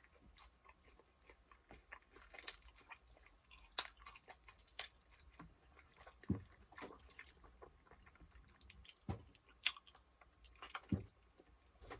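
Close-up eating sounds of sauced chicken wings: quiet wet chewing and biting, with scattered sharp smacks and clicks from sticky fingers and mouth.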